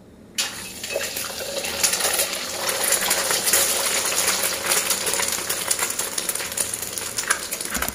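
An egg frying in a pool of hot oil in a wok, sizzling and crackling with a dense spatter of pops; it starts suddenly about half a second in.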